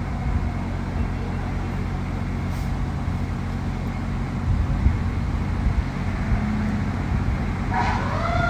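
Fire engine engine running with heavy road rumble between siren cycles. The siren starts up again, rising in pitch, near the end.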